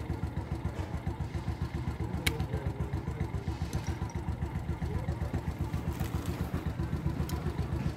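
Small engine idling steadily with an even, fast low pulse, with a couple of sharp metallic clicks as chain links are handled, one a little past two seconds in and one near the end.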